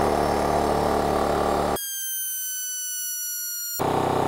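Makita XGT 40V cordless Quiet Series compressor's brushless motor and pump running steadily while it fills its tank from empty toward 135 PSI. For about two seconds in the middle this gives way to a high tone slowly falling in pitch, where the run is fast-forwarded, before the normal running sound returns.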